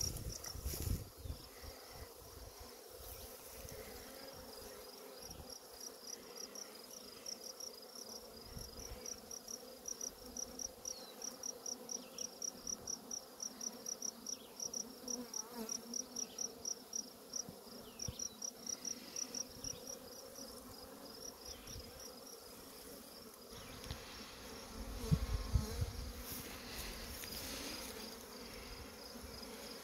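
Honey bee swarm humming steadily. Over it runs a high, rhythmic chirping, about three or four pulses a second, that fades out a few seconds before the end. A brief low rumble of handling or wind comes near the end.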